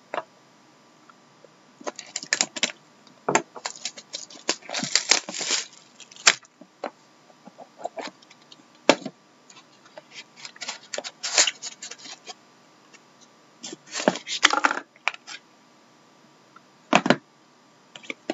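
A trading card box and pack being opened and handled: irregular crinkling of the pack wrapper, cardboard rubbing and clicking, and cards sliding against each other, in short uneven bursts.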